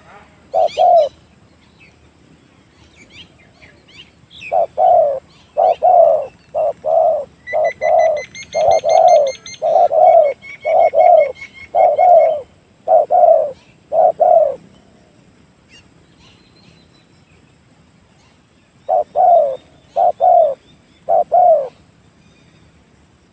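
Spotted dove cooing in a long string of short coos: two at the start, a long run through the middle, and a few more near the end. Small birds chirp faintly above it, with a fast high trill partway through.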